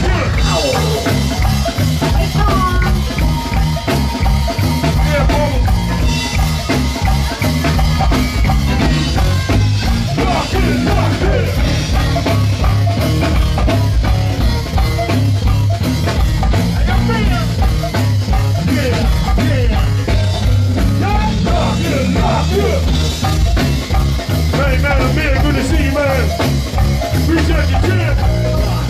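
A go-go band playing live at full volume: a steady, heavy drum and bass beat with congas and other percussion, electric guitar and voices on top.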